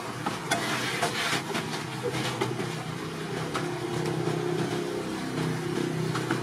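Metal snips cutting a plastic jug, giving irregular sharp clicks and crunches, most of them in the first two seconds and a few later. Under them an engine runs with a steady hum.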